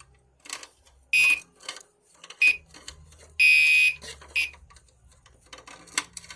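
Gentex Commander 3 fire alarm horn sounding in separate loud blasts of about half a second, each a harsh high-pitched tone, with short knocks and handling noise in between.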